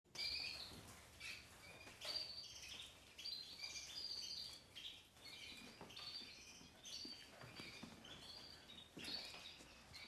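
Many caged canaries chirping and trilling together, a faint chorus of quick, overlapping high calls.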